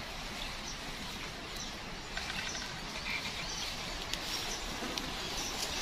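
Forest ambience: a steady background hiss with occasional short bird chirps.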